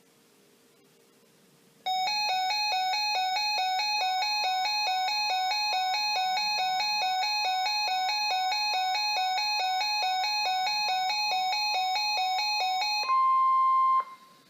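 Electronic chime notes repeated evenly about three times a second for around eleven seconds. Then a single loud steady tone of about 1 kHz sounds for roughly a second, the weather radio's 1050 Hz warning alarm tone.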